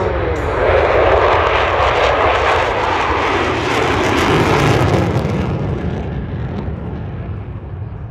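Jet noise from a low pass by a formation of U.S. Air Force Thunderbirds F-16 fighter jets: a loud rush that swells about a second in and fades away after about five seconds.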